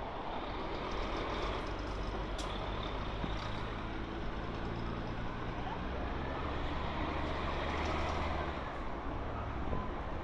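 Steady city road traffic: a continuous rumble of passing vehicles' engines and tyres.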